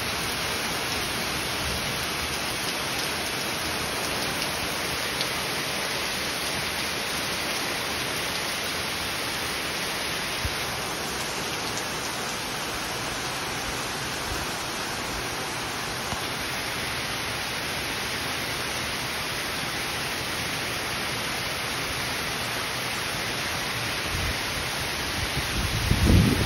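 Heavy rain pouring steadily, an even hiss of rain on leaves, lawn and deck. Near the end a brief low rumble rises above it.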